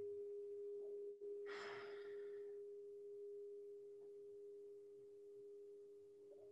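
Long, steady ringing tone of a meditation bowl slowly fading, with a lower tone coming in partway through. A short breath sounds about a second and a half in.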